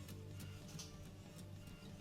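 Quiet background music with held, steady notes.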